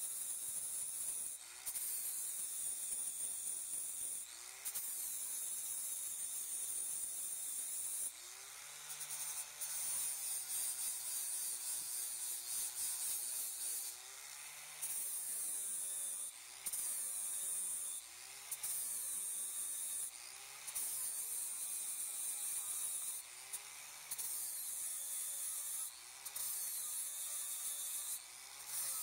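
Corded angle grinder with an abrasive disc grinding the heads off steel rivets, a steady high-pitched grinding that breaks off briefly every couple of seconds as the grinder is pulled away from the rivet.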